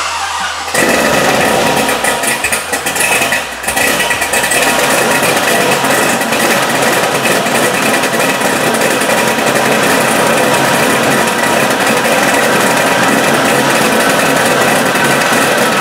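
LS-series V8 in a Nissan 240SX (S14) starting up about a second in, then idling steadily through a new dual exhaust with an X-pipe.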